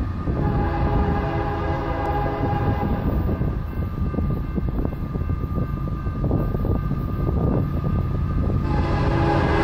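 Air horn of an approaching Union Pacific diesel locomotive, several notes sounding together, over the low rumble of the locomotives. One long blast starts about half a second in and lasts a few seconds. A second blast starts near the end as the train draws closer and louder.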